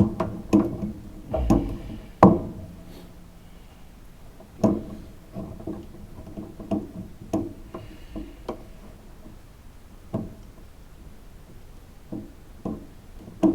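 Scattered clicks and knocks of metal parts and tools handled while fitting the starter cable's terminal and trying to start its nut on a garden tractor's starter; a few knocks ring briefly.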